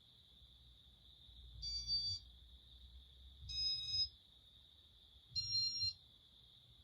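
Three short electronic beeps from a Casablanca Inteli-Touch wall control, evenly spaced about two seconds apart, each at a slightly different pitch with a soft low thump under it.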